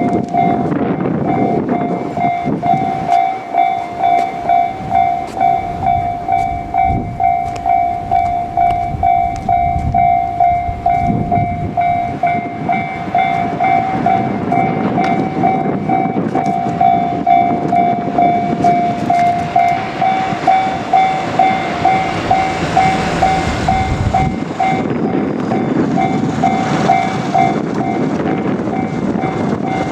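JR Kyushu 787 series electric trains passing each other through a level crossing, wheels clacking over the rail joints. Over them the crossing's warning bell rings steadily, about two dings a second.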